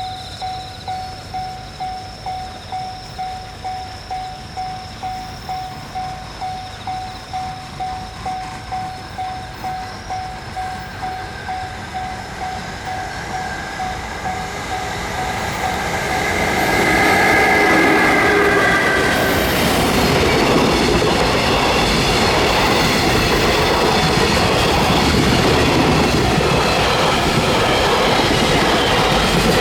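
EF66 electric freight locomotive hauling a freight train approaches and passes. For the first fifteen seconds or so a high ding repeats about twice a second; then the train's noise swells, with a brief high-pitched note as it arrives, and from about seventeen seconds the freight wagons run past with a steady loud rumble and clatter of wheels on rail.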